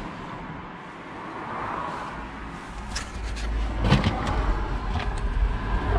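Scrap being shifted about in the back of a van: rustling and a few sharp clicks and knocks, the loudest about four seconds in, over a low rumble that starts about two seconds in.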